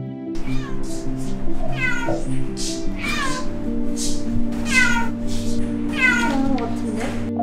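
Kitten meowing over and over, high calls that each fall in pitch, over steady background music; it is crying from inside a built-in wardrobe where it is trapped. The calls cut off suddenly near the end.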